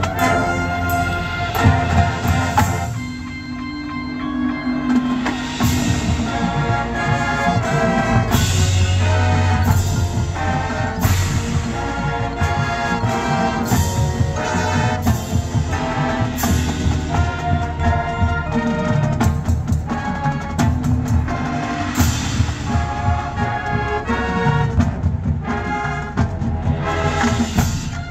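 Marching band playing its field show: brass chords over drums and front-ensemble mallet percussion, with frequent accented hits.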